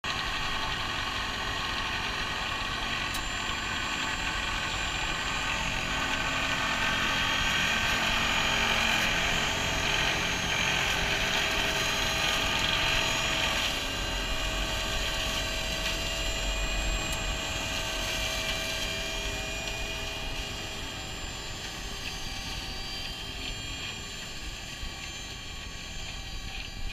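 New Holland tractor driving a Shelbourne reach-arm flail mower cutting grass and reeds on a ditch bank: engine and spinning flail head running with a steady whine. It is loudest as the tractor passes close by and fades as it moves off.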